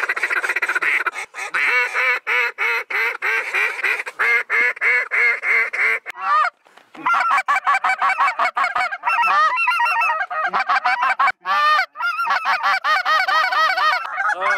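Handheld goose calls blown by more than one hunter at once in fast runs of honks and clucks, with a short break about six seconds in.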